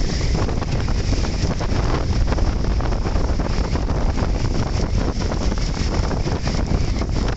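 Strong wind buffeting a smartphone's microphone on the open deck of a small passenger ferry under way, a steady loud rumble over the boat's running and water noise.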